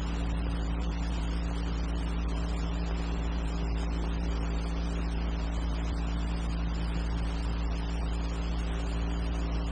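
Steady low hum with an even hiss, unchanging throughout: the background noise of an old film soundtrack.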